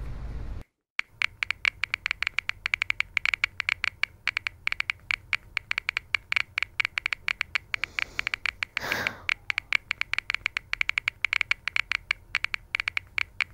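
Rapid, irregular clicking of keys being typed and tapped, starting about a second in, once a low traffic rumble cuts off. A short whoosh comes about two-thirds of the way through.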